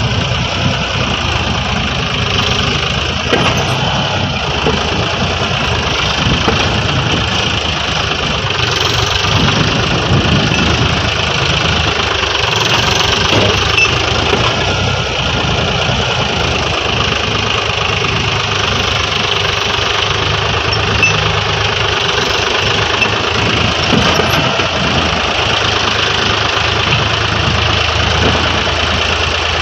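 Mahindra Yuvo 575 DI tractor's diesel engine running steadily under load as it pulls a fully loaded soil trolley slowly over rough dirt.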